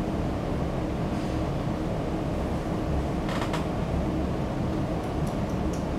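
Steady low hum and rumble of room ventilation, with a brief soft rustle about three seconds in.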